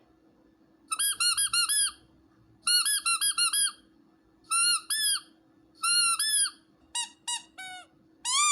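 Squeaky rubber dog toy squeezed repeatedly, in quick groups of two to five squeaks, each squeak a short pitched squeal that rises and falls. Near the end come three shorter, lower squeaks, then a longer drawn-out one begins.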